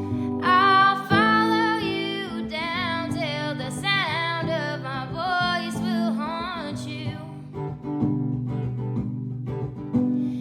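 A song: a voice singing over acoustic guitar. The voice stops about seven seconds in and the guitar plays on alone.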